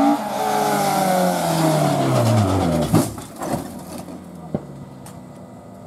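Rally car engine at high revs passing close by, its pitch sliding down over the first few seconds. A sharp crack about three seconds in, a brief rise in revs, then a smaller crack, and the engine fades as the car pulls away up the lane.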